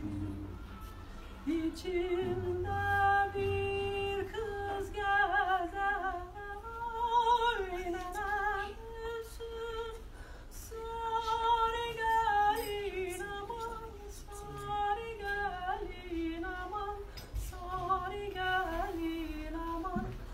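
A solo voice singing a slow, unaccompanied melody, with long held notes that waver and turn in ornaments.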